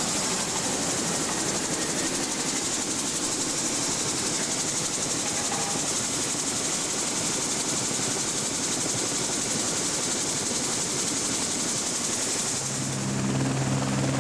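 Eurocopter AS350 helicopter's Turbomeca Arriel turboshaft and main rotor running on the pad, a steady loud rush with a strong high turbine hiss, heard close beside the machine. Near the end the high hiss falls away and a steady low hum takes over.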